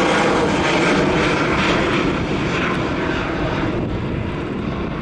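Boeing 737-800's twin CFM56-7B turbofan engines at climb thrust as the airliner climbs away. A steady, broad jet-engine noise that slowly fades and loses its higher frequencies as it recedes.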